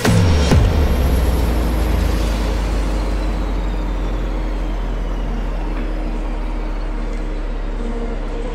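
Diesel engine of a wheeled forestry harvester running steadily, a low hum that slowly grows fainter.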